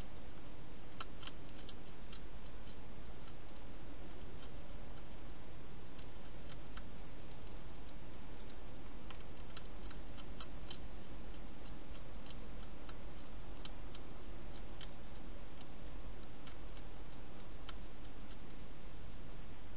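A hedgehog crunching dry food: irregular, sharp little clicks, some in quick clusters, over a steady hiss.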